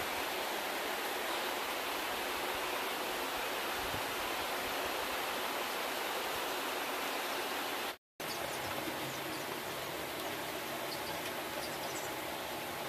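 Heavy rain falling steadily on trees, an even hiss. About eight seconds in it cuts out for a moment, then a slightly quieter steady hiss goes on with a few faint, short, high peeps from chicks.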